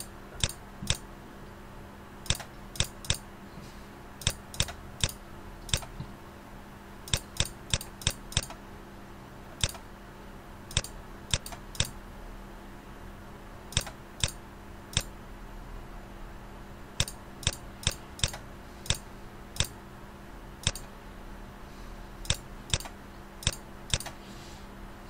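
Computer mouse button clicking: sharp single clicks at an irregular pace, often two in quick succession, over a faint steady hum.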